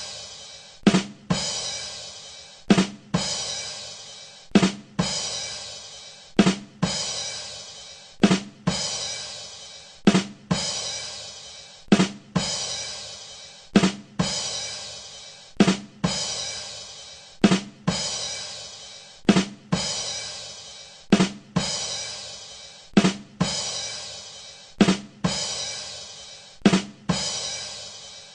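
The 'ba dum tss' rimshot sting on a drum kit, played over and over: two quick drum hits followed by a cymbal that rings out and fades, repeating about every two seconds.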